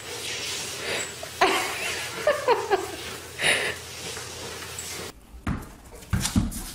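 A dog tussling with a person over a cloth tug toy on a wooden floor: scuffling, with a few short vocal sounds in the first three seconds. Near the end, a few low thuds.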